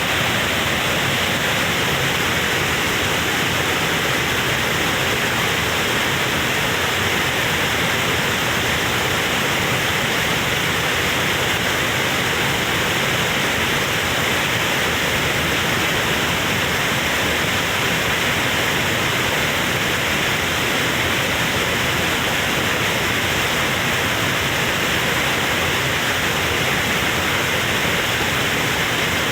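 Waterfall's water rushing in a steady, unbroken roar of white noise.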